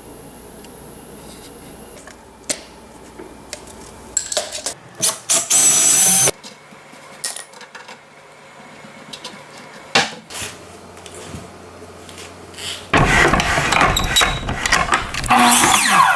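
Power tool run in short bursts about four to six seconds in, with a few knocks, then a longer loud run from about thirteen seconds on.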